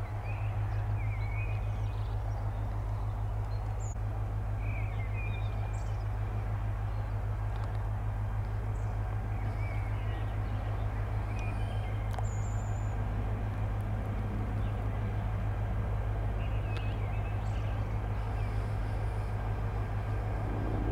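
Two coupled electric locomotives, E.405.014 leading, approaching slowly with a steady low hum. Birds chirp on and off throughout.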